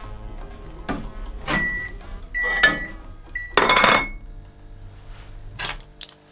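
Kitchen clatter: a series of sharp knocks and clinks of crockery and household objects, several with a brief ringing note, the loudest a little under four seconds in. Low sustained music sits underneath and fades out near the end.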